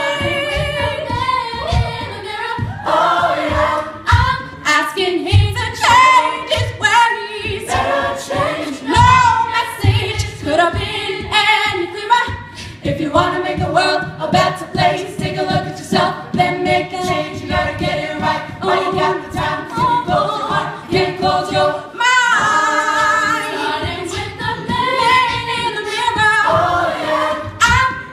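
A cappella vocal group singing layered, mostly wordless harmonies over a steady beat.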